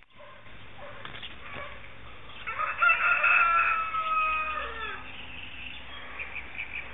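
A rooster crows once, a single long crow starting about two and a half seconds in and lasting about two seconds, its pitch dropping at the end.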